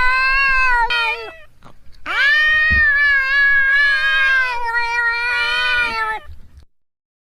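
Cat meowing in long, drawn-out calls: one ending about a second in, then a single long meow of about four seconds, wavering slightly in pitch.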